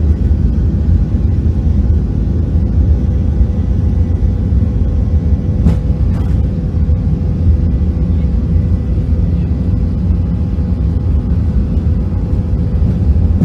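Boeing 737 cabin noise during a fast runway roll: a steady rumble of jet engines and wheels on the runway, with a few steady engine tones over it. Two brief knocks come about six seconds in.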